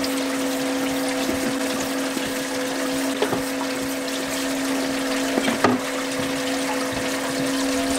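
Steady machine hum and rushing water aboard a boat, with a few light knocks of a kitchen knife on a wooden cutting board as raw fish is chopped for sashimi.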